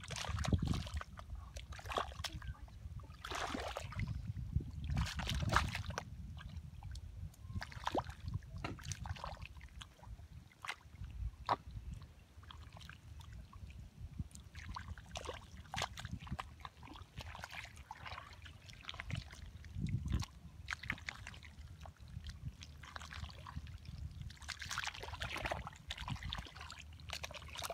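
Hands and feet squelching and sloshing through wet mud and shallow water, in irregular bursts, as the mud is dug through by hand.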